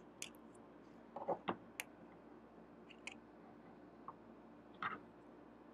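Scissors snipping a folded strip of paper into small pieces: a scattering of quiet, short snips and clicks.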